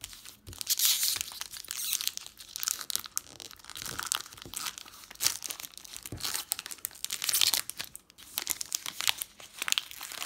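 Foil-lined Magic: The Gathering booster pack wrapper being torn open and crinkled by hand, in irregular bunches of sharp crackling.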